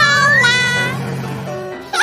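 Children's cartoon background music with a squeaky pitched sound effect. The effect slides upward over the first half second, then fades out.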